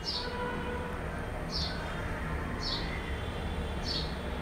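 A bird's short, high, falling chirp repeated about once a second, over a steady low rumbling noise.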